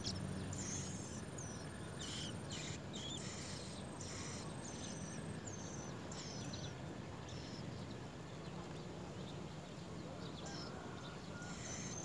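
Songbird nestlings' high, thin begging chirps, short squiggly notes repeated every half second or so, over a steady low hum. A thin, steady high whine runs through the first half and stops about five seconds in.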